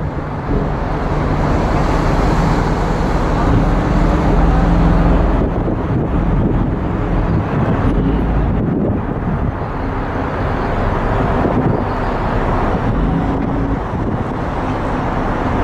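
Passenger ferry's engines running with a steady low drone, mixed with wind rushing over the microphone and the churn of the wake.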